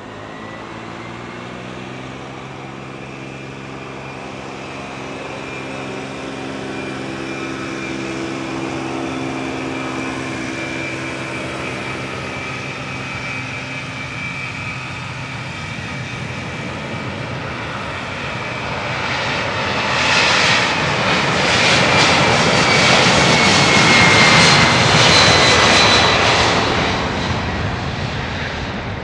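Boeing 767-300ER's twin turbofan engines at takeoff thrust during the takeoff roll: a steady jet whine and roar that builds, is loudest about two-thirds of the way through as the jet passes, its whine dropping slightly in pitch, then eases off.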